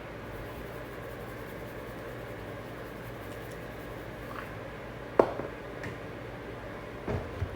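A sharp knock about five seconds in and a few lighter clicks near the end, over a steady low hum: handling sounds such as utensils or cookware being set down.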